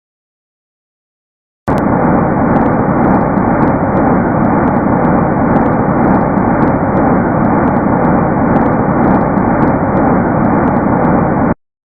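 Sonified spacecraft data rendered as sound: a loud, even rushing static with scattered faint crackling clicks over it. It starts abruptly about two seconds in and cuts off just as abruptly near the end.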